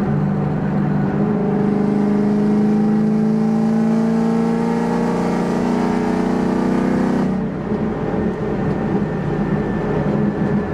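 2021 Camaro 1LE engine through an AWE Track Edition exhaust, heard from inside the cabin, pulling under throttle with a steady tone that climbs gently in pitch. About seven seconds in the tone drops off suddenly as the throttle is lifted, and the car runs on more quietly.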